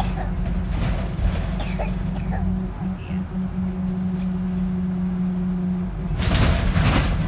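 Inside a moving bus: the engine runs with a steady drone, with small squeaks early on, and a loud hiss lasting about a second comes about six seconds in.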